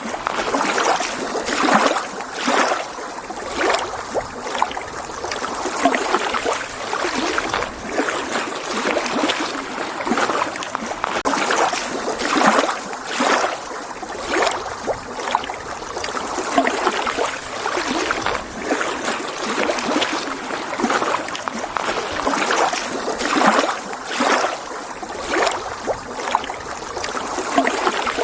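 Small lake waves lapping and splashing against the shore, in irregular surges about once or twice a second.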